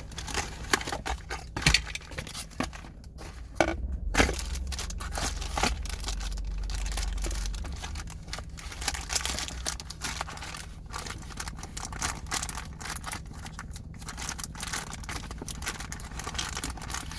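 Hands handling the packaging and parts of a door handle set: plastic wrapping crinkling and rustling, with small clicks and scrapes of hardware throughout.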